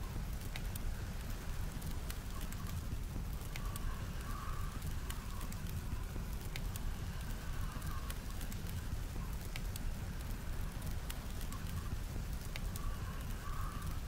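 Wood fire crackling, with scattered sharp pops over a steady low rumble. A soft mid-pitched sound recurs every couple of seconds.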